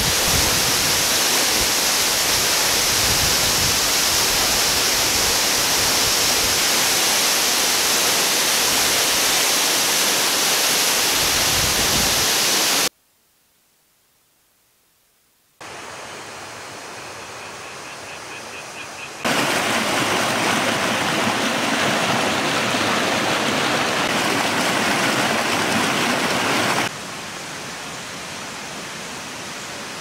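Khun Korn Waterfall, steady rushing water falling onto a rock pool. Just under halfway through the sound drops out for nearly three seconds. The water noise then returns quieter, is loud again for several seconds, and softens near the end.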